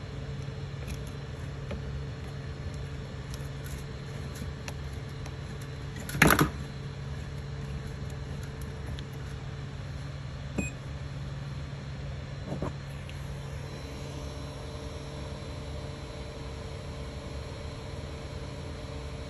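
Creality Ender 3 3D printer humming steadily while powered on. One loud sharp clack comes about six seconds in, and two lighter clicks follow a few seconds later.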